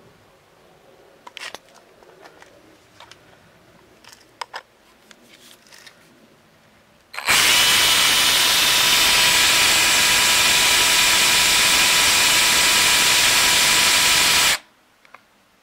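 Drillpro cordless rotary hammer drilling into a concrete slab, running steadily for about seven seconds with a whine over dense grinding noise, starting about halfway in and cutting off sharply. Before it starts, a few light clicks and knocks.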